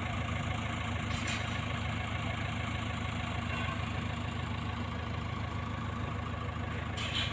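Backhoe loader's diesel engine idling steadily, a low even rumble, with a brief rustle about a second in and again near the end.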